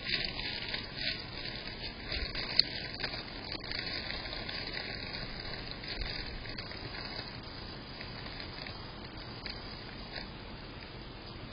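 A hedgehog rustling and crackling through dry leaves as it pushes into its hedgehog house, with one sharper click between two and three seconds in. The rustling stops after about four seconds, leaving a steady hiss.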